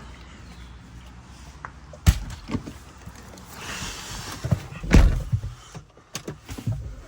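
A steady low rumble with sharp door thuds, one about two seconds in and a louder one near five seconds.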